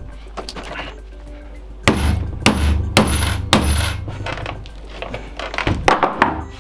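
Stiff clear plastic battery tray crackling and clattering while it is pulled and worked loose from a pack of sealed lead-acid battery blocks. A dense run of sharp knocks and crackles comes about two to four seconds in, and a few more clicks come near the end.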